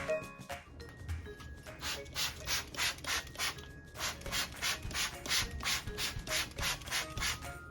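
Bathroom sink being scrubbed by hand: quick back-and-forth scrubbing strokes, about three to four a second, steadier and more regular after the first couple of seconds.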